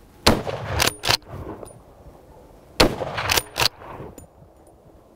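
Two rifle shots about two and a half seconds apart, each followed within a second by two quick metallic clacks as the bolt of the Merkel Helix straight-pull rifle is worked back and forth to chamber the next round.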